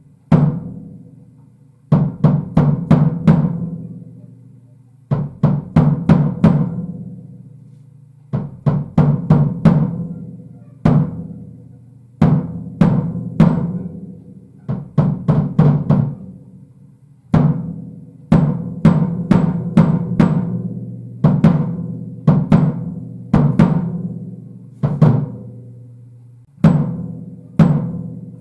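Sonor BOP drum kit with poplar shells played in short fills: groups of quick strokes every few seconds, the toms and bass drum ringing out with clear low pitches between phrases.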